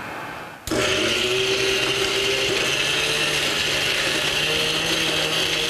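Small electric blender with a stainless steel jar switching on about half a second in and running steadily at full speed, grinding a thick red curry paste without added water.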